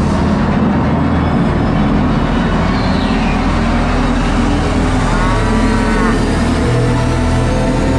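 A cow mooing about five seconds in, laid over loud background music that runs throughout.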